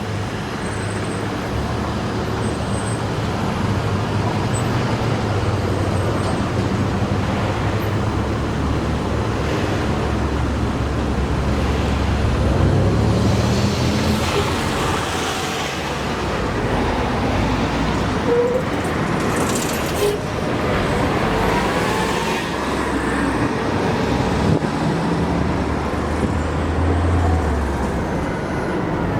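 Steady road traffic: cars and larger vehicles driving past with their engines running, with a low engine hum through much of it and a few brief gliding whines in the second half.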